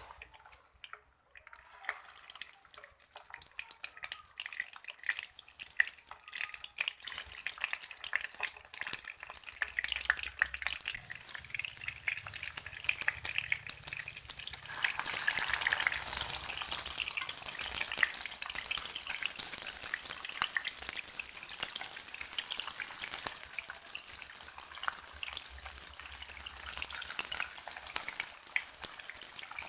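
Slices of bamboo shoot stuffed with minced pork frying in hot oil in a pan, sizzling with dense crackles and spits. The sizzle grows louder over the first half and then holds steady.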